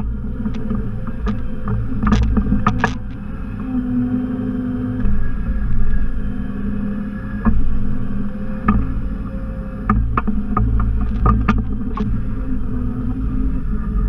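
Simplicity Legacy XL 4x4 garden tractor's engine running steadily under the KwikWay backhoe and loader, with scattered sharp knocks and clanks from the attachment.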